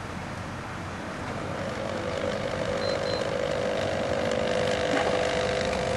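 Low-voltage, high-current power transformer fed through a variac, humming as it is powered up. The hum comes in about two seconds in and grows louder as the voltage is turned up, over steady background noise.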